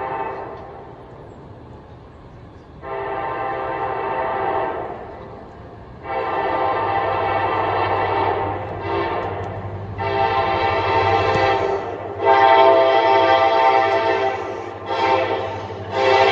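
Diesel locomotive's multi-note air horn sounding a series of long blasts broken by short ones, the long, long, short, long pattern of a grade-crossing warning, growing louder toward the end. Under it a low engine hum builds from about six seconds in as the locomotive approaches.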